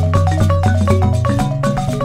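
Background music: a quick tune of short struck notes over a steady bass line.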